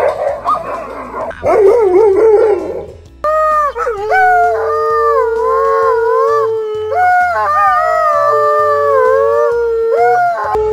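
Alaskan Malamutes vocalising: first a jumble of excited, wavering howls from dogs at a gate, then, about three seconds in, two malamutes howling together in long drawn-out tones, one low and steady, the other higher and wavering, with two short breaks.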